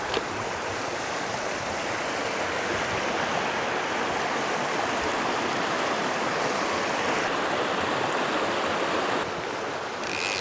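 Mountain stream rushing steadily over rocks in turbulent water. The sound drops slightly about nine seconds in.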